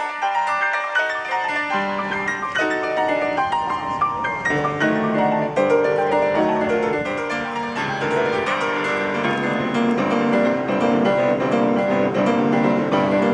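Piano music: a busy stream of notes, with deeper notes joining about halfway through.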